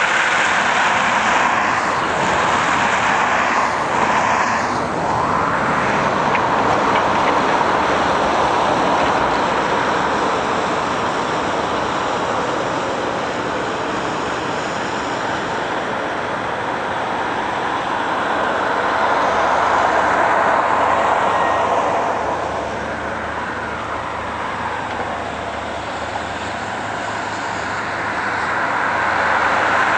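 Caterpillar 325D hydraulic excavator's diesel engine running under load as the boom and bucket dig, its note rising and falling a couple of times with the working movements.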